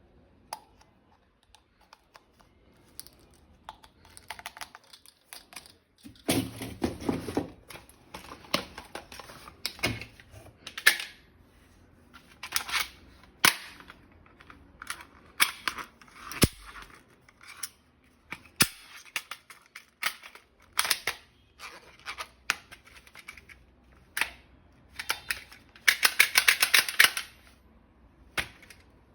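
Toy M416 gun being worked and fired: scattered sharp clicks and snaps of shots, with a rapid automatic burst near the end.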